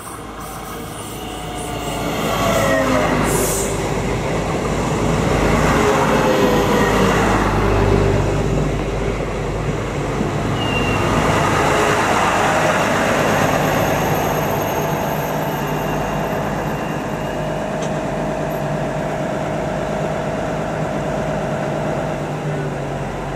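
Two coupled DB class 644 diesel-electric Talent multiple units pulling into the station and braking to a stop. Falling whines come as they slow, then a steady hum as they stand with engines running.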